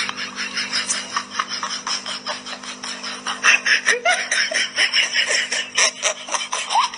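A person laughing in quick, breathy bursts, louder in the middle, over a steady low hum.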